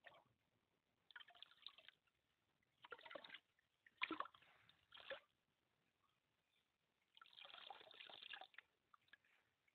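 A bowl being rinsed in a stream: water scooped up and poured back out, splashing and trickling into the stream in several short bursts, the longest pour starting a little after seven seconds in.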